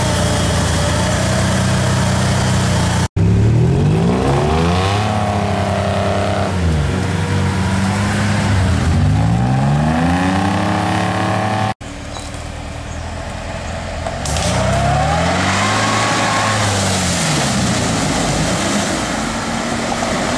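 Off-road 4x4 engines revving up and falling back over and over while pushing through deep mud, the pitch rising and dropping every two or three seconds. The sound breaks off abruptly twice, about three and twelve seconds in, as one vehicle's run gives way to another's.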